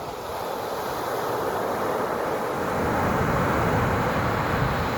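Ocean waves breaking: a rushing wash of surf that swells over the first three seconds and stays loud, with a low rumble building from about halfway.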